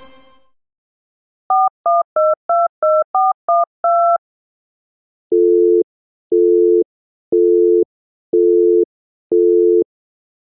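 Telephone keypad dialling: eight quick touch-tone (DTMF) beeps, each a different two-note pair. These are followed by five evenly spaced low line-tone beeps, about half a second on and half a second off, in a busy-signal rhythm. The last of a ringing phone fades out at the very start.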